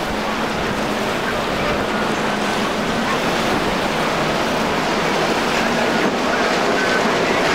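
Outboard-powered center-console boats, among them a Sea Chaser with a single Suzuki 350 hp outboard, running past at speed. The engine noise is mixed with the rush of hulls and wake through choppy water, and it grows a little louder near the end.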